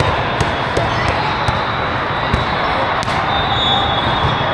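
Sports hall din of many voices talking, with scattered sharp knocks of volleyballs being hit and bouncing on the court floor.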